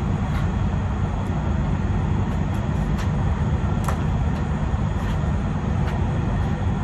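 Steady low rumble of outdoor noise, with sharp slaps about once a second from a jump rope striking the ground.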